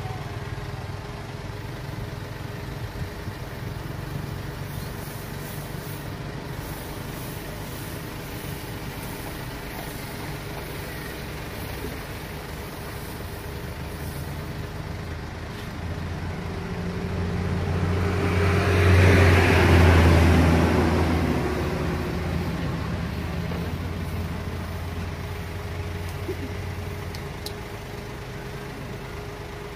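Steady low engine hum, with a passing motor vehicle that swells up and fades away, loudest about two-thirds of the way through.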